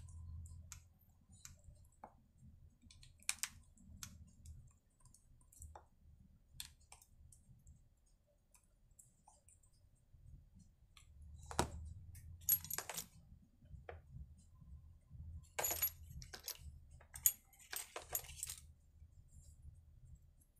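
Small metallic clicks and taps of a screwdriver working the screws of a Walbro chainsaw carburetor, with small parts handled and set down. The clicks come scattered and sparse at first, then in busier clusters about halfway through and again a few seconds later.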